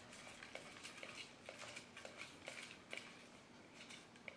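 Faint, irregular light ticks and rustling of paper name slips being handled in a cardboard box, most of them in the first three seconds.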